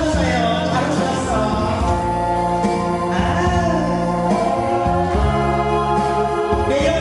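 A song sung over an instrumental backing track, with held, wavering vocal notes over a steady bass line.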